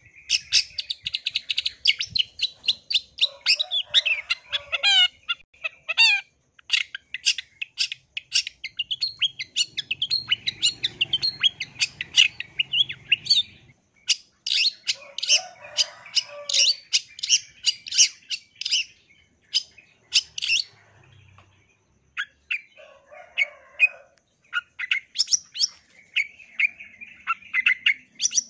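Long-tailed shrike (cendet) singing a fast, chattering song of sharp, high chirps strung together in rapid runs, mixed with a few harsher, lower notes. It breaks off briefly about halfway through and again about three-quarters of the way through.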